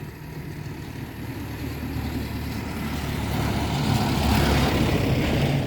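Motor vehicle running with a low engine hum and a rushing noise that builds steadily, loudest about four to five seconds in.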